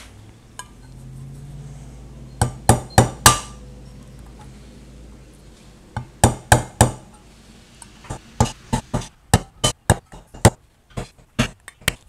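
Hammer striking to punch small holes in a metal mason jar lid, sharp metallic taps. They come in two quick groups of four, then a steadier run of taps, about two or three a second, through the last few seconds.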